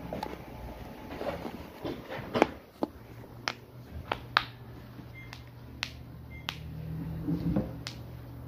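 Sharp clicks and taps, about eight of them at uneven intervals, from hands handling the phone close to its microphone. A low steady hum comes in about halfway through.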